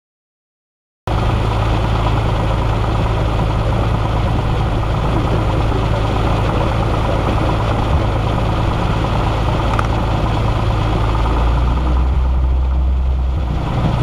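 Single-engine light airplane's piston engine and propeller running at idle during warm-up, a steady drone that starts abruptly about a second in. Near the end its note briefly drops lower, then comes back.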